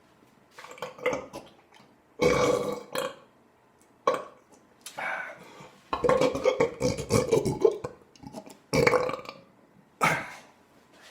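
A man belching deliberately, about seven burps in a row with short gaps between them; the longest and loudest runs for nearly two seconds a little past the middle.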